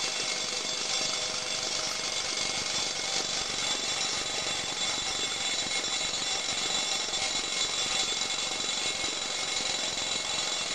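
Mechanical alarm clock ringing steadily and continuously: the hammer rattles rapidly against the bell, giving a dense, high ringing.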